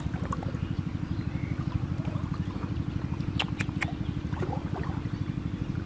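A small engine running steadily with a fast, even chugging, with two short sharp clicks about three and a half seconds in.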